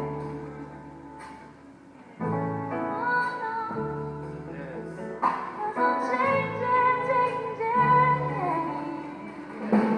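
Live gospel music. Held keyboard chords fade out, then a new chord comes in about two seconds in. Over it a voice sings long wordless runs.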